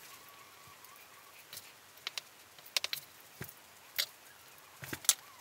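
Scattered sharp clicks and taps of kitchen handling while balls of biscuit dough are rolled and set out, the loudest about five seconds in. A faint steady high tone sounds in the first second.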